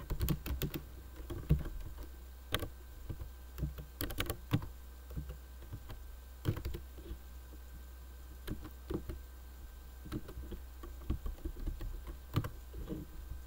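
Typing on a computer keyboard: irregular keystrokes in short runs with pauses between, over a low steady hum.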